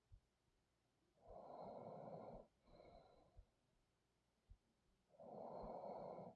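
A sleeping person breathing heavily: two loud, noisy breaths about four seconds apart, with a softer breath between them.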